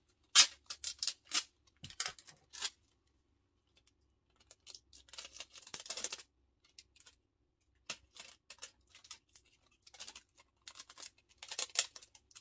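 Adhesive tape pulled off the roll and torn in short ripping bursts, with clicks of plastic bottles being handled, as the caps of plastic bottles are taped shut so they won't leak.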